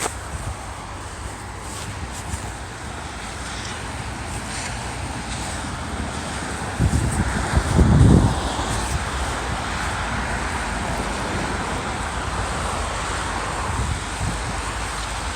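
Steady outdoor wind and traffic noise with wind buffeting the microphone, and a louder low rumble about seven to eight seconds in.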